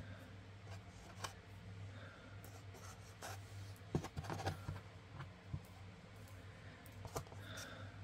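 Faint rustling and light ticks of cotton thread being handled and pulled through the fingers while a macrame square knot is tied, with a cluster of louder scuffs about four seconds in, over a steady low hum.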